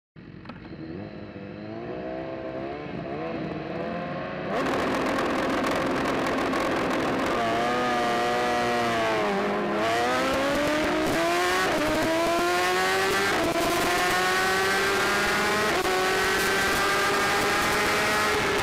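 Onboard sound of a racing superbike at speed, its BMW S1000RR inline-four engine note climbing in steps through quick upshifts over heavy wind rush. The sound fades in at first, the wind rush comes in strongly about four seconds in, and the engine note falls briefly near the middle before pulling up through the gears again.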